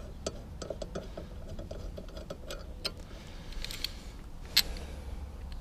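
Faint small clicks and light metal rattles of hand work on a lawnmower's blade bolt and the tools beside it, with one sharp click about four and a half seconds in.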